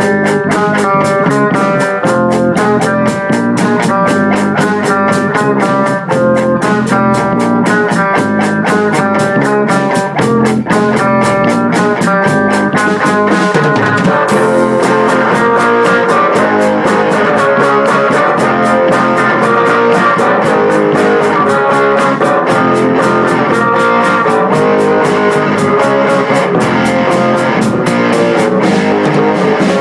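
Background music: a plucked guitar tune over a steady beat, with the band growing fuller about halfway through.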